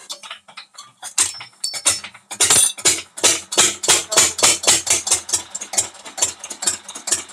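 6 HP 2002-model single-cylinder diesel engine with twin flywheels, hand-cranked and catching about two seconds in, then running with an even knocking beat of about four to five strokes a second.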